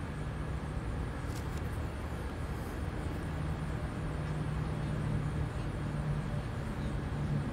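Steady low hum and rumble of outdoor background noise, with no clear events.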